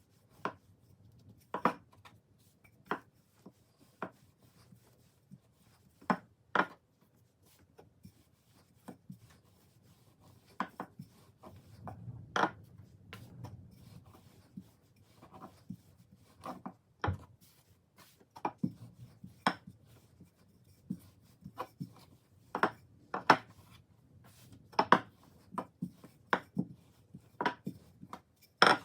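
Irregular light knocks and clicks, roughly one or two a second, with faint rubbing between them: objects being handled on a hard surface.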